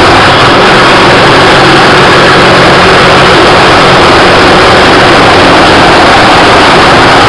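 Jigsaw cutting stainless steel sheet: the motor runs steadily as the blade saws through the metal, loud and unbroken.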